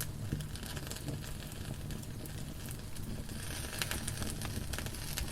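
Wood fire burning in a fireplace: steady crackling with scattered sharp pops over a low rumble.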